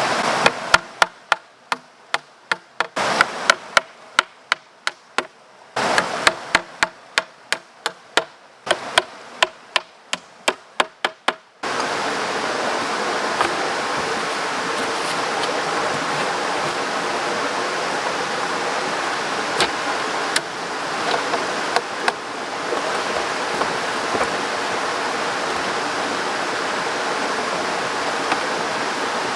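A quick run of sharp knocks, about two or three a second, for roughly the first half; then the steady rush of a flowing stream takes over, with a few faint clicks in it.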